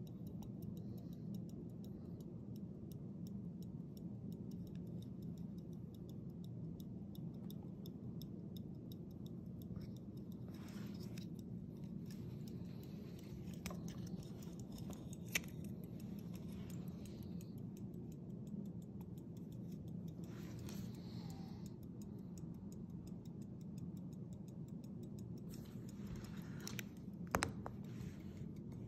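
A Jean-Antoine Lépine 18th-century key-wind fusee pocket watch ticking in a fast, even run of fine ticks. A few louder clicks and brief rubbing sounds come as the gold case is handled.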